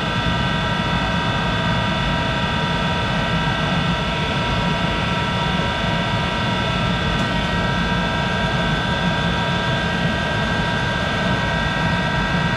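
A 1951 Monarch 10EE lathe running steadily just after start-up, spindle turning at about 200 RPM with no cut being taken. Its motor-generator drive gives a steady whine of several high tones over a low hum.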